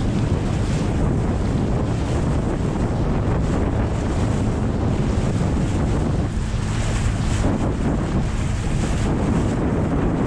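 Steady wind buffeting the microphone on a moving boat, over the rush of water and a low, even hum.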